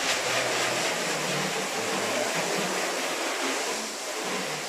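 Water hose spraying onto a helicopter's bare aluminium fuselage, rinsing off the acid etch before the Alodine conversion coating; a steady rushing hiss of spray that tapers off near the end.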